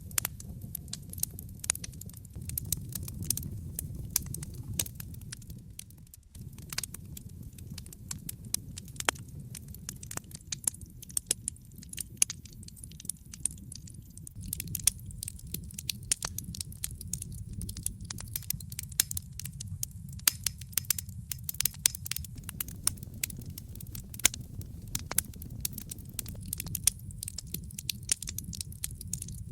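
Fireplace fire crackling, with frequent irregular sharp pops and snaps over a steady low rumble, which dips briefly about six seconds in.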